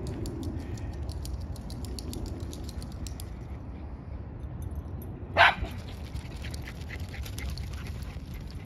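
A small dog barks once, a single short bark about five seconds in, over a steady low rumble.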